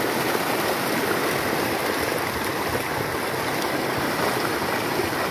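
Steady splashing and churning of water from a mass of milkfish thrashing in a seine net drawn through shallow pond water.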